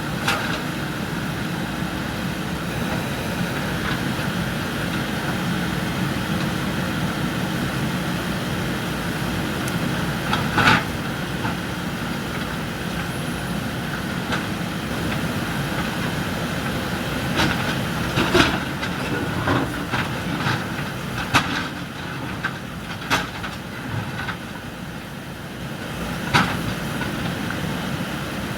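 Backhoe loader's diesel engine running steadily, with a few sharp knocks and clanks at irregular moments, the loudest about a third of the way in and several more in the second half.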